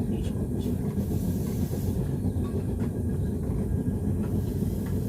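Steady low roar of a forge burner running, with a few light metallic clicks as pieces of iron are handled.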